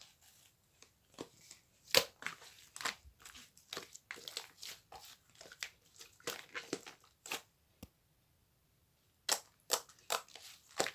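Irregular crinkling and crunching, a string of sharp crackles with a short pause about eight seconds in.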